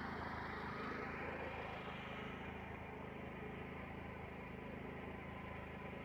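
Small engine of a portable generator running steadily at constant speed, a continuous low hum.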